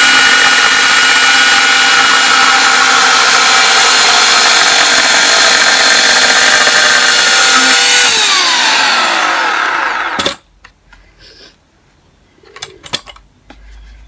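Titan chainsaw running at a steady high pitch, then winding down, its pitch falling over about two seconds before it stops abruptly about ten seconds in. A few faint knocks follow.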